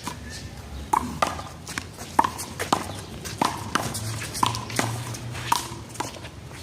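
One-wall handball rally: a run of sharp smacks at an uneven pace, roughly every half second to a second, as the small rubber ball is struck by hand and hits the wall and court.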